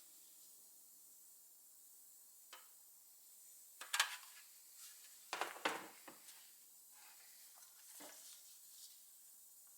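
Handling noise: a few light knocks and clatters at irregular intervals over a faint steady hiss, the loudest about four seconds in and again around five and a half seconds in.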